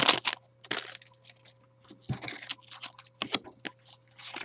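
Crinkling and crackling of a plastic booster-pack wrapper and trading cards being handled, in an irregular run of short crackles.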